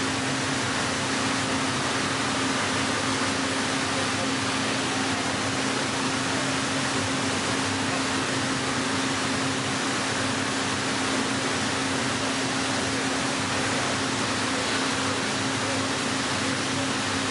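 Heller four-roll CNC plate rolling machine running as it rolls a steel plate: a steady hum under an even hiss, with no knocks or breaks.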